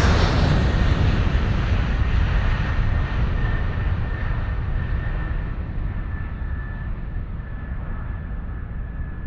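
Jet airliner engines heard from the passenger cabin while climbing after takeoff: a steady low rumble and rush of noise, slowly getting quieter, with a faint high whine from about three seconds in.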